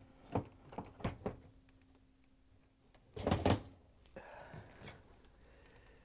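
Metal clicks and clunks of a GE dishwasher door's steel hinge arms being lined up and seated on their hinge pins. A few light clicks come first, the loudest clunk about three seconds in, then a short scraping rub.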